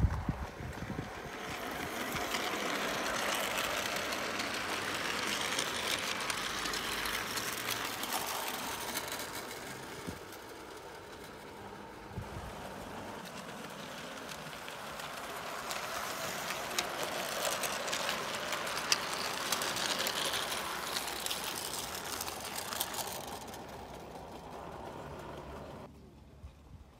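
O gauge model train running along garden track, its wheels rattling on the rails. The sound grows louder and fades twice as the train passes close by.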